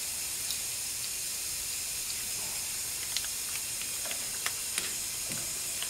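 Steady hiss of compressed air leaking at the air-hose fitting that pressurises the cylinder through the spark plug hole, holding the valves shut while the valve stem seals are changed. A few light metallic clicks and taps come in the second half as the valve spring compressor is seated on the spring.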